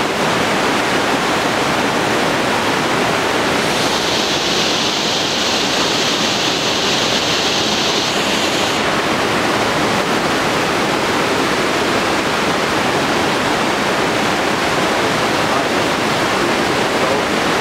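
Steady rushing noise like running water, even and unbroken, with a brighter hiss laid over it from about four to nine seconds in.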